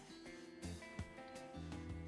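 Background music: an upbeat track with strummed guitar over a steady beat.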